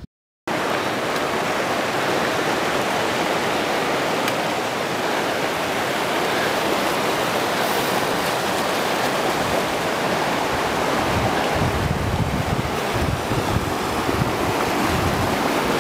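Mountain stream rushing over rocks, a steady rush of water that starts abruptly about half a second in. In the last few seconds wind buffets the microphone with gusty low rumbles.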